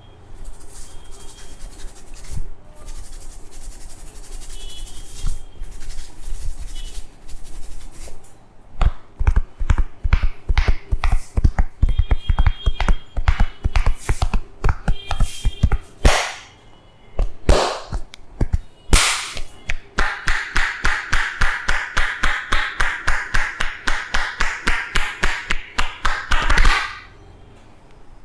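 Percussive hand massage: rapid runs of sharp hand slaps and taps, with a few louder single smacks in the middle. Near the end comes an even run of about four slaps a second that stops abruptly.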